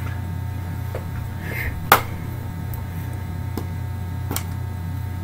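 Steady low electrical hum with a few scattered clicks and taps from handling, the sharpest about two seconds in.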